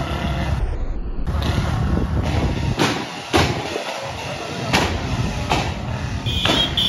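Royal Enfield Bullet motorcycle with a loud aftermarket exhaust, running in street traffic. The engine rumbles steadily, and several sharp exhaust pops crack out through it, the loudest about midway.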